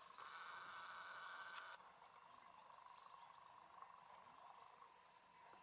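Near silence: faint outdoor ambience and hiss, a little louder for the first second and a half.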